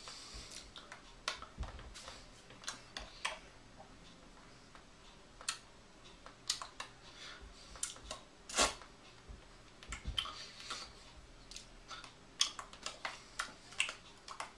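Irregular soft taps and clicks from hands striking and brushing against each other and the chest while signing, about one or two a second, one louder tap a little past the middle, with a few short brushing hisses.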